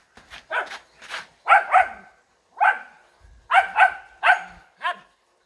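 A dog barking: about nine short, sharp barks, some single and some in quick pairs, with brief pauses between them.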